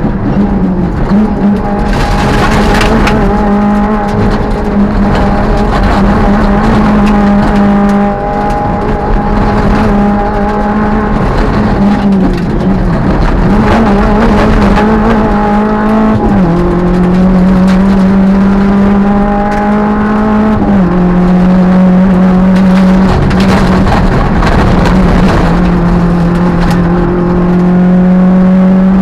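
Peugeot 205 rally car's engine driven hard on a rally stage, heard from inside the cabin. The pitch climbs and wavers with the revs, and drops sharply at two gear changes in the second half before climbing again.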